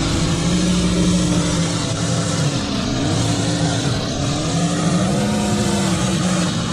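Small petrol engine of lawn equipment running steadily, its pitch sagging about midway and then rising again.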